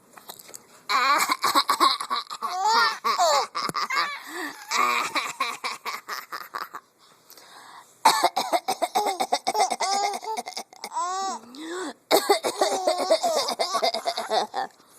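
A woman coughing over and over while a young child laughs in bursts of high, rising-and-falling giggles, set off by the coughing. There is a short lull about seven seconds in before both start again.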